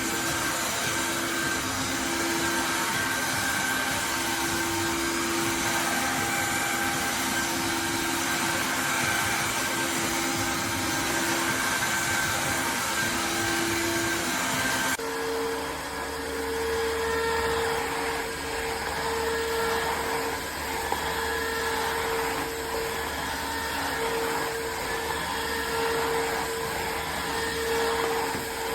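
Tineco iFLOOR 3 Breeze cordless wet-dry vacuum mop running steadily with a droning hum; about halfway through its sound changes abruptly to a higher hum.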